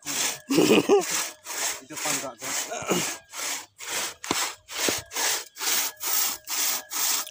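Two-man crosscut saw cutting through a log, pulled back and forth in an even rhythm of about three rasping strokes a second.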